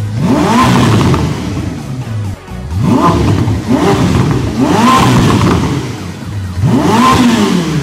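Ferrari SF90 Stradale's twin-turbo V8 revved four times, each rev rising in pitch and falling back, about two seconds apart.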